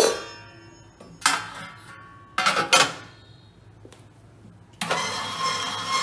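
Stainless-steel parts of a vegetable dicing machine clanking together as the lid is handled and set in place: four sharp metal clanks with a ringing tail. Background music starts about five seconds in.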